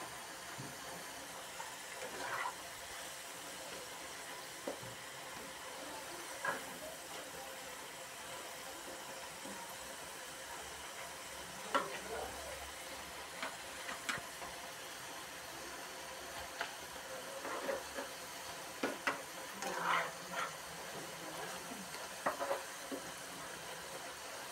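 Potato fries sizzling steadily as they deep-fry in hot oil in a wok. A metal skimmer stirring them makes scattered clinks and scrapes against the pan, more of them in the second half.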